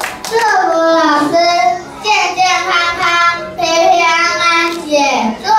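Young children singing in held, drawn-out phrases.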